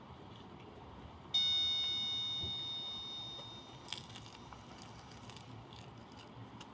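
A single high chime, struck once about a second in and ringing out, fading away over about two and a half seconds, over a faint steady hiss. A small click follows near the middle.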